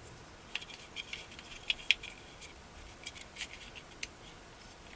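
Small parts of a compact gas airsoft pistol being handled at a bench: light scraping and a scatter of small clicks, with a few sharper clicks.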